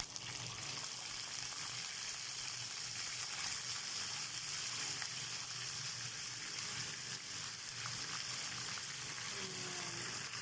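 Chicken wings frying in hot olive oil in a pan with onion and garlic, a steady sizzle.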